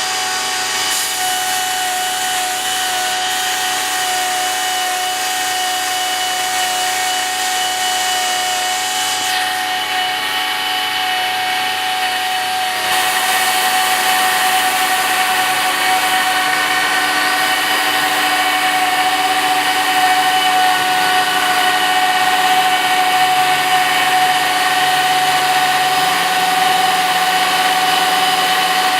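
Router spindle milling a wooden board: a steady, high whine with several fixed tones over the noise of the cutter in the wood, growing louder about thirteen seconds in.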